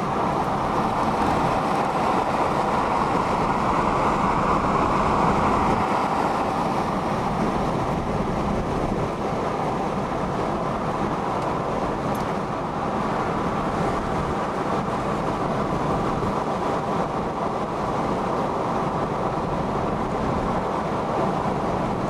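Steady road drone of a car cruising at highway speed, heard inside the cabin, swelling slightly about four to six seconds in.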